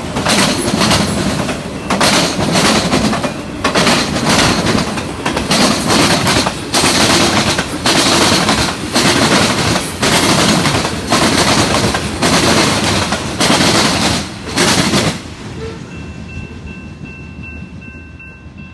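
Norfolk Southern train's cars rolling past close by, a loud rushing rumble broken by short dips about once a second as car after car goes by. The end of the train passes about fifteen seconds in and the noise fades away.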